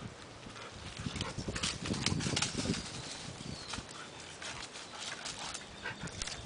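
Dry leaves and twigs crackling and rustling underfoot as a black Labrador-type dog trots about carrying a long stick through leaf litter, with irregular crunching clicks.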